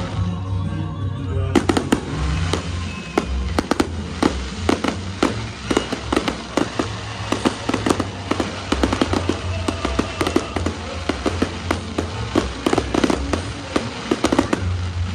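Fireworks display: aerial shells bursting into crackling stars, a dense rapid run of pops and crackles that starts about a second and a half in. Music plays underneath.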